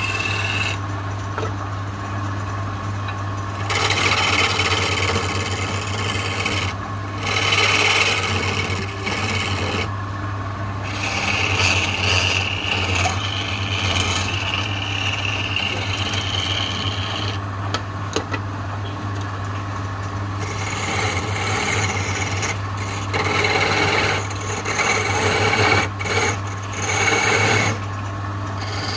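Wood lathe running with a steady low hum while a hand-held turning tool scrapes and cuts the spinning wooden spindle. The rasping cuts come in passes of a few seconds each, with short lulls between.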